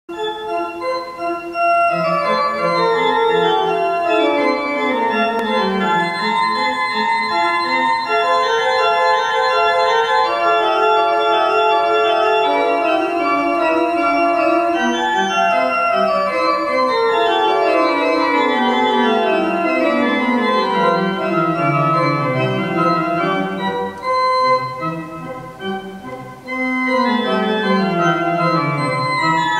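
Pipe organ playing a prelude: sustained chords with flowing runs of notes that sweep downward several times, briefly softer a little before the end.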